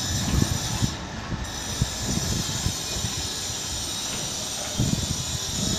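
Telcoma-motor-driven telescopic sliding gate opening, its leaves rolling along the ground rail with an irregular rumble and clatter of wheels on the track.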